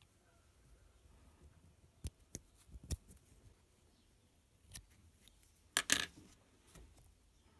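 Small metal scissors snipping through cotton wick: several sharp snips about two to three seconds in and another near five seconds. Then a louder clatter of metal, the scissors being set down on the cutting mat.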